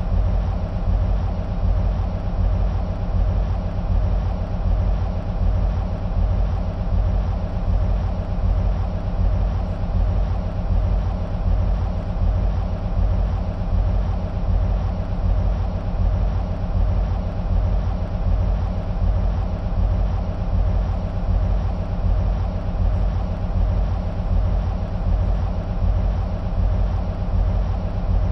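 EMD SW1500 switcher locomotives idling, their twelve-cylinder EMD 645 two-stroke diesels running with a steady, even low throb.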